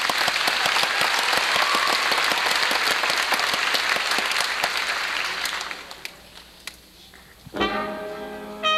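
Audience applauding after a number, dying away about six seconds in. Near the end the band's wind instruments come in with held chords, starting the next piece.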